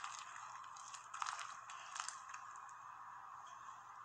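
Slime mixed with play-doh and shaving cream being stretched and pressed, making a faint crackling and squishing, with a few sharper clicks about one and two seconds in.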